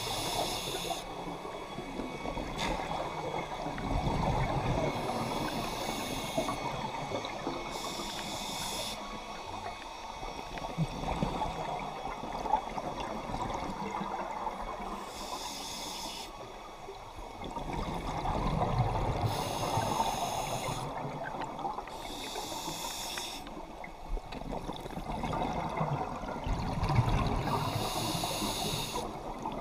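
Scuba diver breathing through a regulator underwater: a short hiss on each inhale and a low rumble of exhaled bubbles, returning every several seconds over a steady wash of underwater noise.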